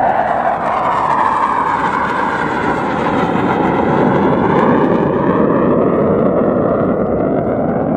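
A military jet flying past low overhead: loud, continuous jet engine noise with a sweeping, phasing tone as it goes by, loudest a little past the middle.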